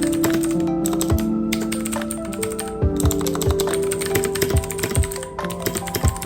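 Rapid typing on a computer keyboard: a dense run of key clicks. It plays over background music with sustained notes and a regular beat.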